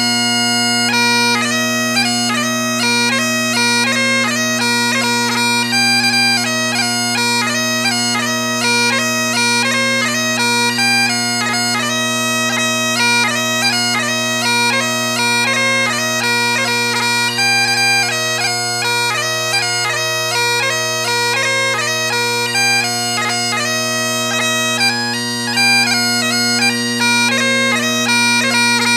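Highland bagpipes playing a quick-moving tune over steady, unbroken drones.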